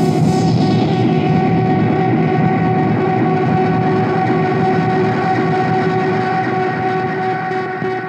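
Korg Monotron Delay analogue synthesizer sounding a steady drone of several held tones over a dense rumbling wash, while its knobs are turned. Its high hiss falls away within the first second.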